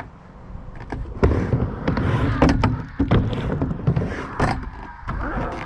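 Skateboard wheels rolling on concrete, with several sharp clacks and knocks of the board about a second apart.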